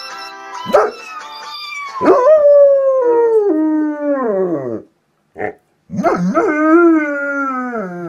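German Shepherd howling with its muzzle raised: two long howls, the first starting about two seconds in and the second about six seconds in, each ending in a falling slide in pitch, with a short yelp between them.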